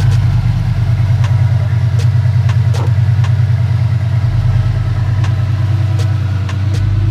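Lamborghini Gallardo's V10 engine idling steadily with an even, rapid low pulse.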